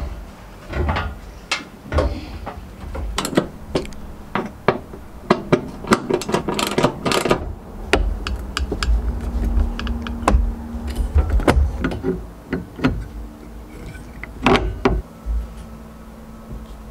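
Plastic windshield cowl panel and wiper arms of a 2010 Jeep Wrangler JK being fitted back by hand: a run of sharp clicks, knocks and rattles of plastic and metal parts and a small hand tool.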